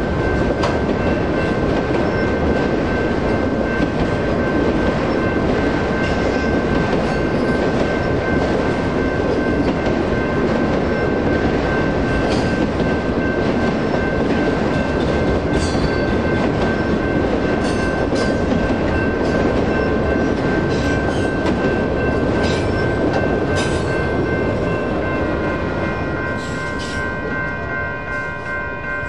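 Autorack freight cars rolling past with a steady rumble and scattered clicks of wheels on rail. The grade crossing's electronic bell rings steadily. Over the last few seconds the rolling noise eases and the bell stands out more.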